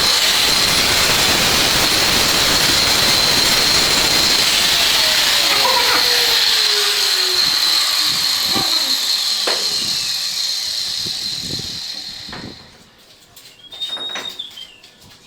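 Electric power tool running loudly with a steady high whine, then winding down and stopping about twelve seconds in. A few light knocks and a brief squeal follow.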